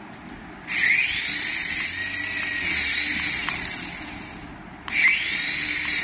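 Small electric rotor motors of a toy RC helicopter spinning up with a rising high-pitched whine and hiss, running steadily, then winding down. They spin up again near the end.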